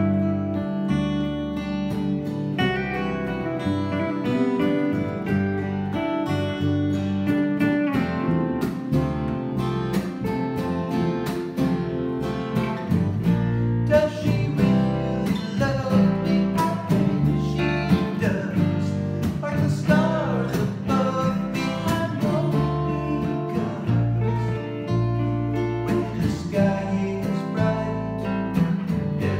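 Two acoustic guitars strummed and picked together with an electric bass, playing a slow song. A man sings from about halfway through.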